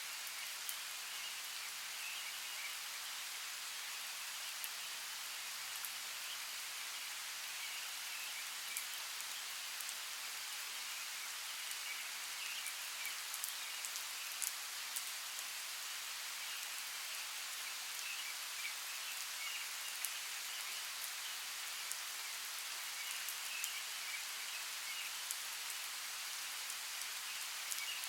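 Steady rainfall on rainforest foliage, with scattered single drops landing close by and a faint chirping in the background.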